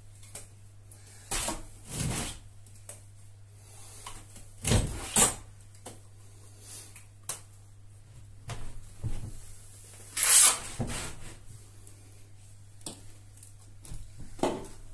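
Steel plastering trowel working a thick, sticky base-coat backing plaster: irregular scrapes and knocks as plaster is taken off the hawk and spread onto the wall, the loudest about ten seconds in.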